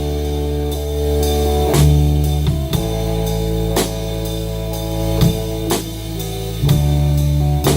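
A band playing: guitar and bass notes held and changing every second or two over a drum kit, with sharp drum and cymbal hits.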